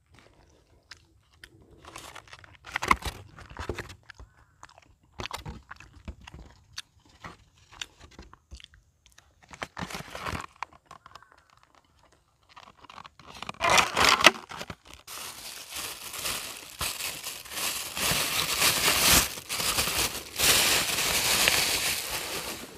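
Paper wrapper being handled and crumpled: scattered small crunches and clicks at first, then dense, continuous crinkling and crumpling for the last third.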